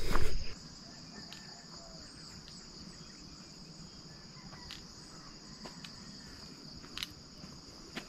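Insects chirring in a steady high-pitched trill, with a few faint ticks and a footstep on the dirt path near the end. A low rumble cuts off about half a second in.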